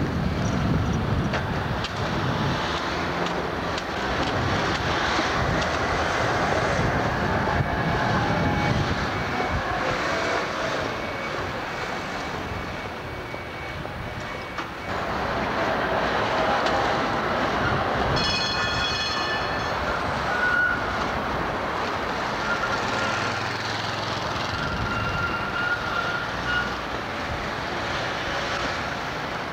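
Electric city trams running along street tracks amid traffic, with a steady rumble of wheels and road noise. A whine falls in pitch about a third of the way in. A brief high ringing tone comes a little past halfway, and a thin high whine holds for several seconds near the end.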